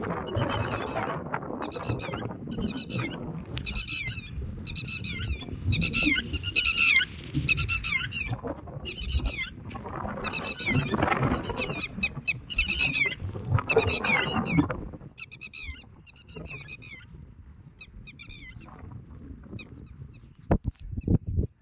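Birds calling loudly and repeatedly, about one and a half calls a second, then fading to a few fainter calls about fifteen seconds in. A few sharp clicks come near the end.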